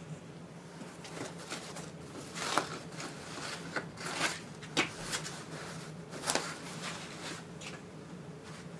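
Light handling noise of flat-pack metal cabinet parts and their packaging being moved about: scattered rustles and small clicks, a few sharper ticks among them, over a faint steady hum.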